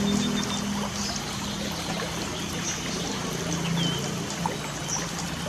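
Light rain falling steadily, with a few short high bird chirps over it. A low steady hum runs underneath, loudest in the first couple of seconds.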